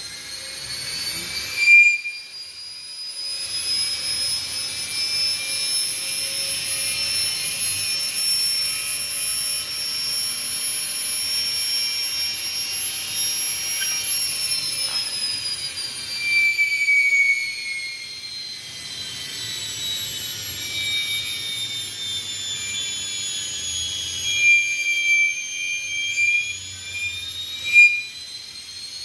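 Washing machine motors, a universal motor coupled to an inverter motor, spinning with a high electric whine. The pitch climbs slowly, then sinks from about halfway, with a low hum beneath and a few short louder chirps.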